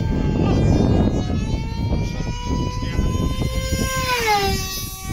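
Small RC speed-delta model plane's motor whining at a steady high pitch, then dropping in pitch about four seconds in as the plane passes by. A steady rush of wind on the microphone lies underneath.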